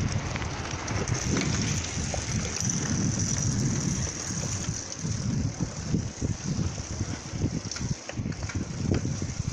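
Wind buffeting the microphone of a rider on a moving bicycle, with the tyres rumbling over a rough road: a steady rushing noise with an uneven low flutter.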